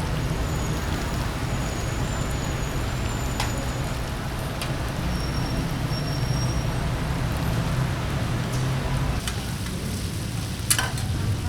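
Stir-fry cooking: a gas wok burner running with a steady low rumble under sizzling food, with a few sharp clicks of utensils on the wok, the loudest near the end.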